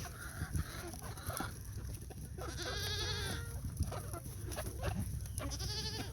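Goat bleating twice: a long quavering call about two and a half seconds in, and a shorter one near the end.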